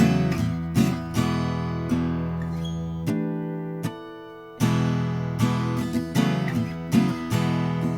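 Guild M-260e acoustic guitar strung with D'Addario flat-top strings, played with a mix of picked notes and chords. The sound dies away briefly about three seconds in, then playing picks up again.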